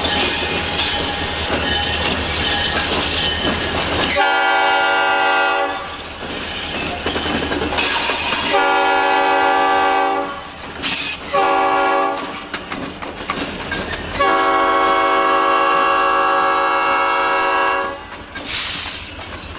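EMD SD40-2 diesel locomotive approaching a grade crossing, then sounding its air horn in the crossing signal: two long blasts, one short, and a final long blast held about three and a half seconds.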